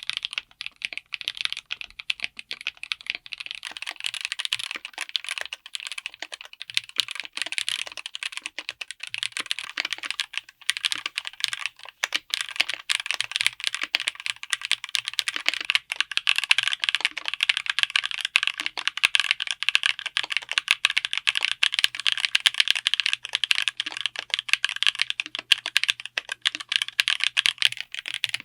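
Continuous fast typing on a mechanical keyboard fitted with linear switches: a dense stream of keystrokes with no tactile bumps or click jackets. The typing grows a little louder and fuller a little past halfway.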